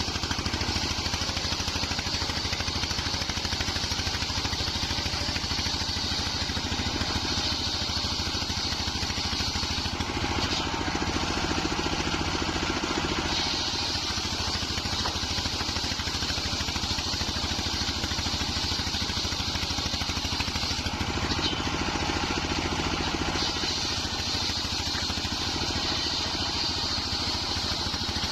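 A wide circular saw blade cutting nyampoh wood, driven by a steadily running engine. The high cutting noise comes in long stretches of several seconds with short breaks between, over the engine's constant pulsing rumble.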